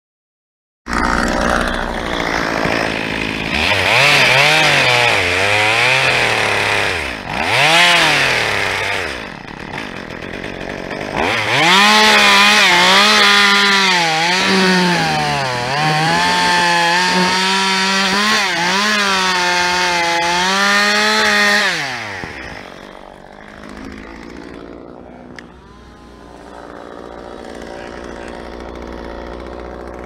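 Two-stroke chainsaw cutting, its engine revving up and dropping back again and again. About three-quarters of the way through it falls away to a much quieter, lower sound.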